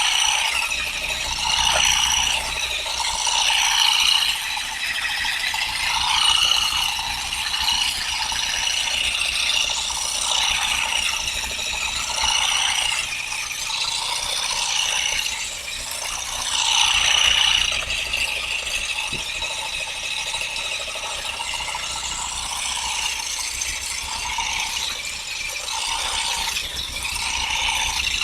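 Powered olive harvester with plastic and nylon combs running steadily through the branches. A dense mechanical clatter whose pitch wavers up and down.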